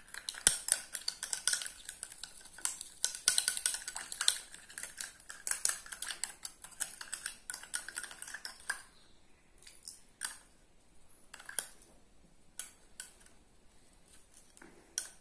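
A spoon stirring salt water in a small bowl, clinking rapidly against the bowl for about nine seconds, then only a few scattered clinks. The stirring is to dissolve the salt.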